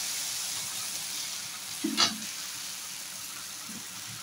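Hot oil sizzling in a kadhai as soaked, drained poha is tipped in from a mesh strainer, the hiss slowly dying down. A single sharp knock comes about two seconds in.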